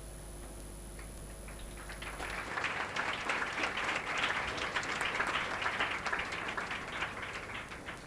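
Audience clapping: a few claps start about a second in, build into steady applause through the middle, and thin out near the end.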